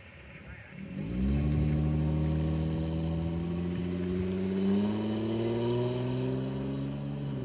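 Freight locomotive's Nathan K5HL five-chime air horn sounding one long blast, starting about a second in. Near the end the chord drops in pitch as the locomotive passes.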